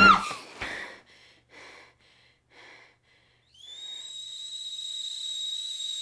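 A woman's scream breaks off abruptly at the very start. A few faint soft sounds follow, then about three and a half seconds in a stovetop kettle starts whistling at the boil: one steady high tone.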